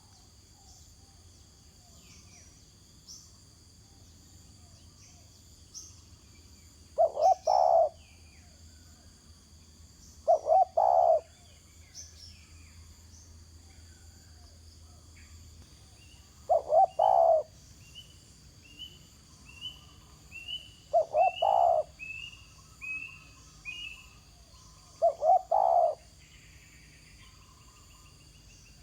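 Spotted dove cooing five times, each call a short phrase of two or three low coos about a second long, spaced several seconds apart. Faint high chirps from other small birds and a steady high insect-like hiss sound between the calls.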